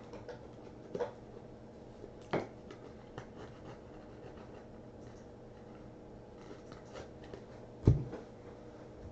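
Quiet handling of old cardboard baseball cards: soft rustling and a few light taps as cards are shuffled and slid, with one louder thump about eight seconds in.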